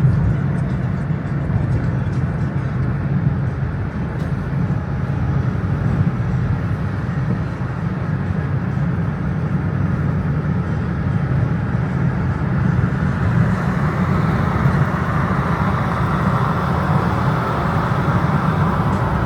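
Steady low rumble of a moving vehicle, engine and road noise, with a brighter hiss building in the second half.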